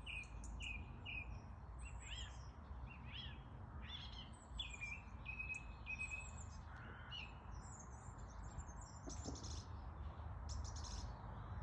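Songbirds singing spring song: several overlapping birds with runs of repeated chirps and high, quick phrases, over a steady low rumble.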